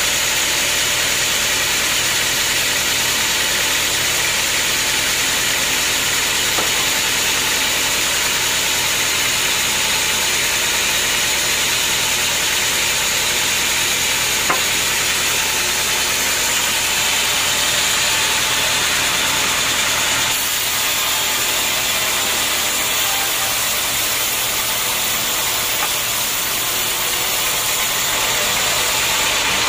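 Band sawmill running steadily as it saws a teak log: a loud, even machine hiss and hum from the motor and the running band blade.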